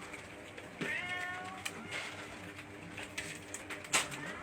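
Domestic cats meowing: one meow about a second in and another starting near the end, with a single sharp click just before it.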